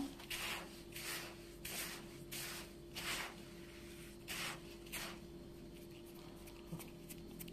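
Hands rubbing semolina and oil together in a bowl, a run of soft swishing strokes about two a second that stop after about five seconds, over a faint steady hum.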